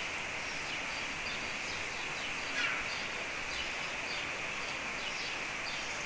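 Steady outdoor background noise with a few faint bird chirps, one short falling chirp about halfway through.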